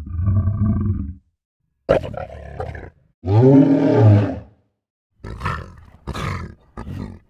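Lion roaring: three long, loud calls, the third the loudest, followed by a run of short grunts about one every 0.7 s.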